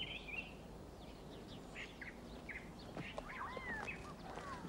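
Small wild birds chirping and twittering, short high chirps scattered throughout with a few sliding whistled calls past the middle, over a faint outdoor background hiss.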